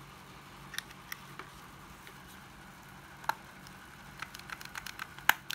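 Scattered sharp plastic clicks and taps from a 12V cordless mini chainsaw being handled, with a quick run of clicks near the end and the loudest just before the end. The saw's motor does not start. A faint low hum sits underneath.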